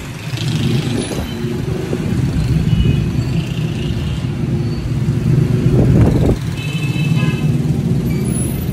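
Busy street traffic: motorcycle and car engines running close by, swelling as a vehicle passes about six seconds in.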